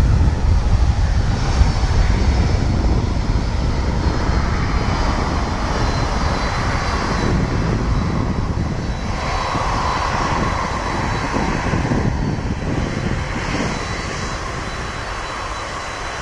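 Boeing 757-200 freighter's twin jet engines at takeoff thrust through the takeoff roll and lift-off: a steady, loud jet roar with a deep rumble and a faint high whine. It gradually fades as the jet climbs away.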